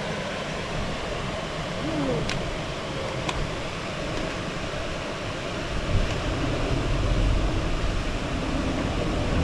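Steady rush of water pouring over a weir. A few sharp clicks sit on top of it, with a louder knock about six seconds in and a low rumble growing after it.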